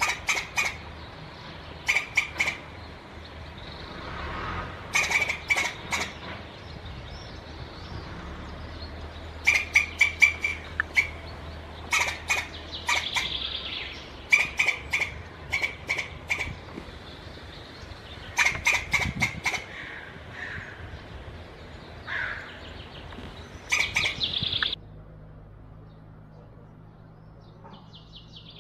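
Caucasian squirrels calling: clusters of three to six short, sharp chucks, repeated every second or two, typical of squirrel alarm calling. They stop abruptly near the end, leaving a quieter steady background.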